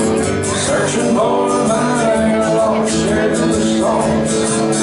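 Music: a man singing over guitar in a country style.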